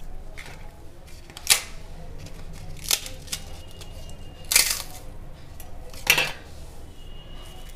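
Crisp fried rice papads being crushed and broken by hand, four sharp crunches about a second and a half apart.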